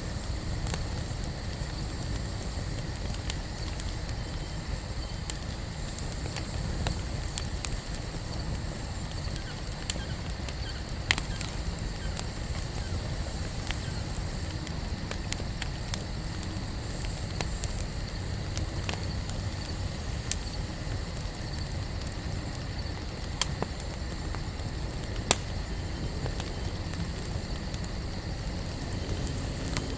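Wood campfire burning, with a steady low rumble and scattered sharp crackling pops at irregular intervals.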